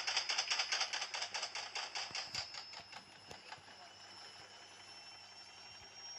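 Gorenje washing machine jumping and knocking rapidly, about five knocks a second. The knocks slow and die away about three seconds in, leaving a faint steady high whine.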